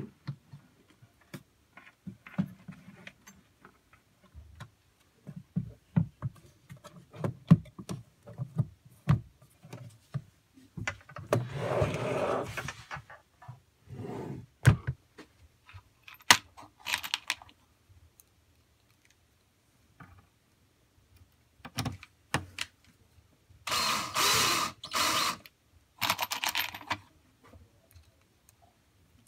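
Handling noise as the amplifier panel of an Anchor Liberty PA speaker is fitted back into its plastic cabinet: a run of knocks, clicks and scrapes, with a longer scrape about twelve seconds in. Near the end, two short rattling bursts come from loose screws in a plastic cup.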